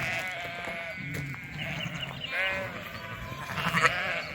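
Flock of ewes and lambs bleating, several calls overlapping one another, the loudest about two and a half seconds in.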